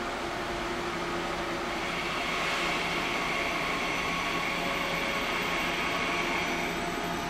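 Electric double-deck regional train passing at steady speed: continuous rolling rumble of wheels on rails, with a steady high whine that rises from about two seconds in and fades near the end.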